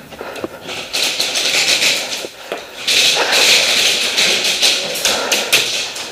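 Heavy breathing through a full face mask: loud hissing breaths in and out, each lasting about a second, with a few sharp taps among them.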